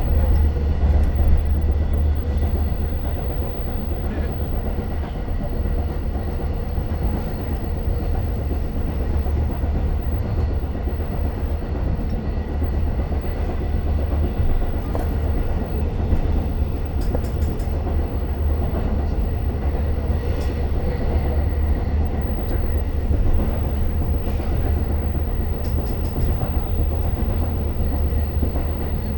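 Long Island Rail Road diesel push-pull train running, heard inside the passenger coach: a steady deep rumble, with a few faint clicks from the wheels on the rails.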